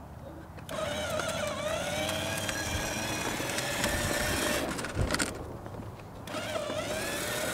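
Electric drive motor and gearbox of a battery-powered ride-on toy Jeep whining as it drives over asphalt while the pedal is held. The whine stops about five seconds in, there is a thump, and it starts again near the end.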